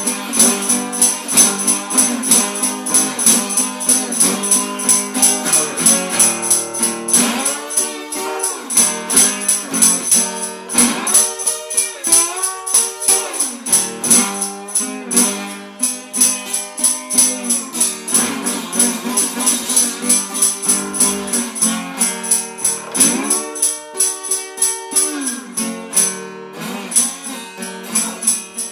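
Acoustic guitar playing a slow blues over a steady shaken tambourine beat.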